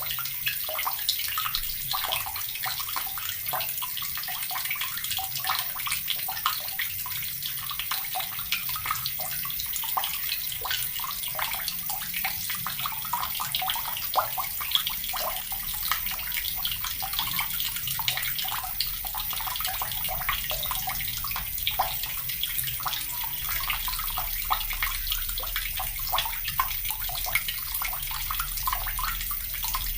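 Water running steadily from a tap and splashing, a continuous, busy patter with no pauses.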